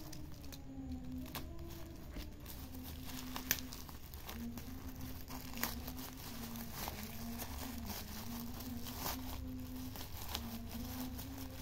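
Thin black plastic bag crinkling and tearing as it is pulled open by hand, with irregular crackles and a couple of sharper rips, the loudest about three and a half seconds in.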